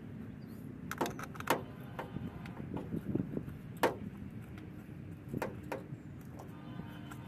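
Scattered sharp plastic clicks and knocks, about five in all, from handling a pickup's taillight housing and bulb socket while fitting an LED reverse bulb. A faint steady hum lies underneath.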